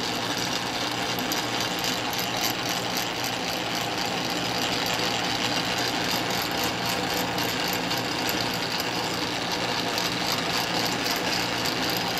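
Early-1950s Sheldon lathe running under power, its headstock spindle and gears turning with a steady, rapid mechanical clatter and whir. The lathe is running on a newly fitted replacement gear that took the place of a worn one.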